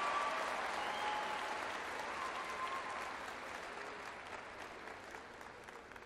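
Audience applause, gradually dying away.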